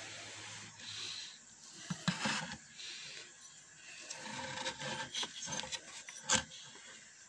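Handling noise as a Microlab Solo 1 speaker cabinet is opened up: rubbing and scraping with scattered clicks and knocks.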